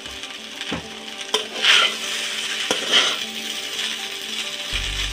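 Boiled noodles stir-frying in hot oil in a kadhai: a steady sizzle, with the spatula scraping and knocking against the pan about five times in the first few seconds.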